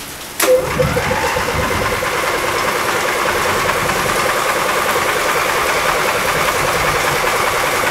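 Electric starter cranking a rebuilt Briggs & Stratton Intek I/C 20 HP V-twin without it firing, turning it over to push oil through the engine. The starter engages with a sharp click about half a second in. The engine then turns over steadily with a fast, even pulsing whine.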